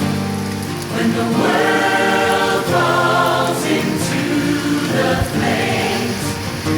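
Background music: a choir singing a slow gospel-style hymn.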